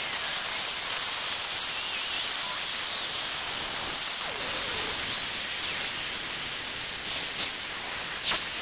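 Small high-speed drill in a drill stand boring into a beech-wood ball: a steady high whine over hiss, its pitch dipping briefly a few times as the bit bites into the wood.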